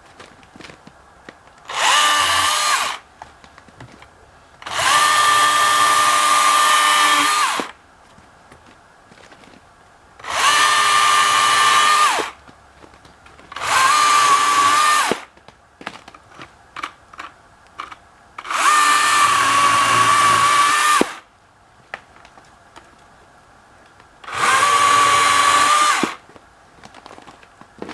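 Husqvarna 120i battery-powered chainsaw run in six short bursts, each a steady electric motor-and-chain whine lasting one to three seconds, stopping in between.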